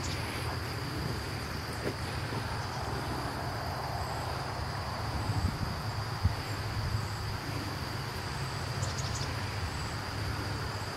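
A steady, high-pitched insect trill over a low hum, with a few light bumps around the middle.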